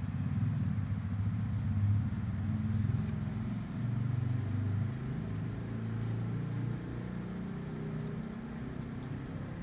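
Low rumble of a motor vehicle engine running, louder in the first half and settling somewhat quieter after about five seconds.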